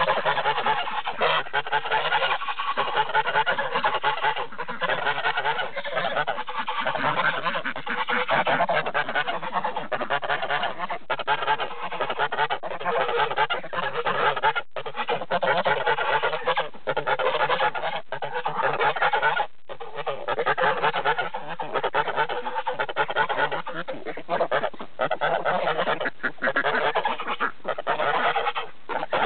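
A flock of domestic geese honking continuously, many calls overlapping.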